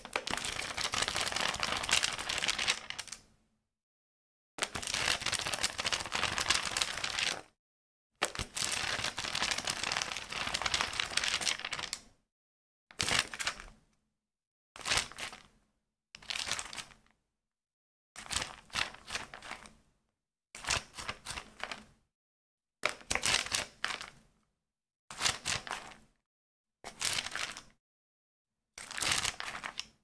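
Pages of a small book being riffled and handled in separate takes: three long riffles of three to four seconds each, then about ten short page flicks, roughly one every two seconds.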